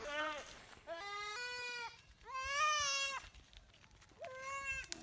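A goat bleating four times in short wavering cries, distress calls as it is seized by a Komodo dragon.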